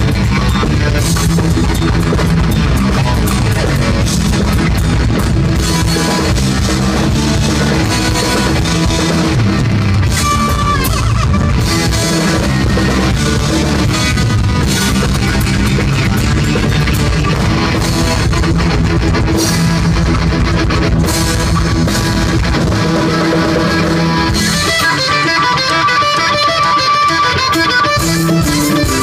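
A heavy metal band playing live, with distorted electric guitar over a drum kit and bass, and no singing. About 25 seconds in, the bass thins out and the guitar comes to the front.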